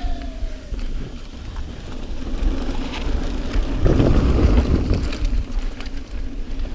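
Niner EMD 9 hardtail mountain bike rolling fast down dirt singletrack, tyres rumbling over the dirt with wind buffeting the microphone. About four seconds in, the tyres clatter across a wooden boardwalk's slats, the loudest part, before running back onto dirt.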